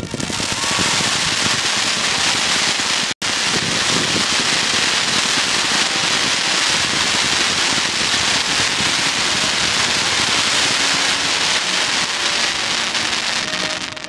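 Fireworks crackling and hissing densely and without a break, with a momentary cut-out about three seconds in.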